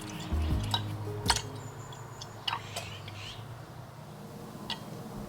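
A few sharp, separate clicks and taps of kitchen utensils and containers while bread ingredients are prepared, over a faint hum. The tail of background music fades out in the first second.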